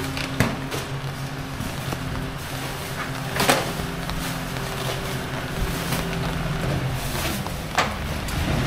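A motor vehicle's engine running close by, a steady low hum over street noise, with two sharp knocks, about three and a half seconds in and near the end.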